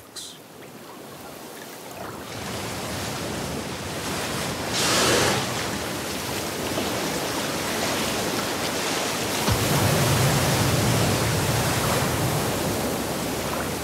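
Ocean waves and surf washing steadily. A humpback whale breaches: a rush of water about five seconds in as it bursts out of the sea, then a heavy low splash a few seconds later as it crashes back down.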